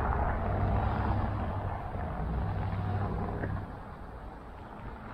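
A road vehicle passing on the street, its low rumble dropping away about three and a half seconds in.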